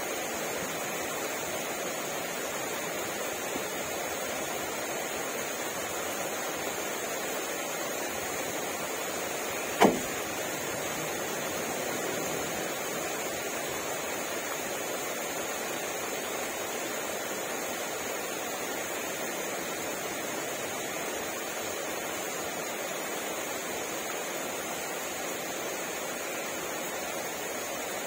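Steady rain falling, an even hiss with no let-up. One sharp tap about ten seconds in stands out above the rain.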